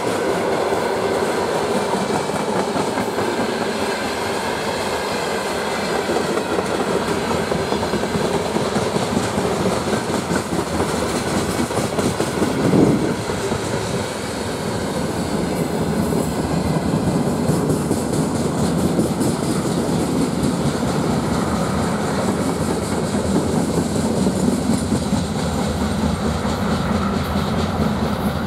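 Freight train of open-top gondola wagons running past close by: a steady rumble with the wheels clattering over the rail joints, and one louder clank about halfway through.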